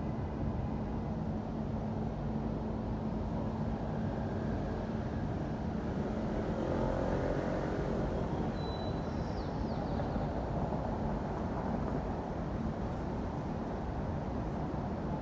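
City street traffic: a steady rumble of cars passing, a little louder around the middle as one vehicle goes by.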